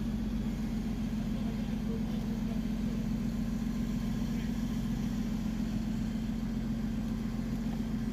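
An engine idling steadily, a constant low hum with no revving.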